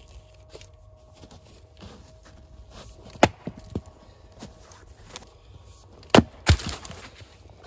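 Axe blows splitting a round of dead oak on a chopping block: one sharp strike about three seconds in, then two quick strikes a little after six seconds, the second with a short splintering crack.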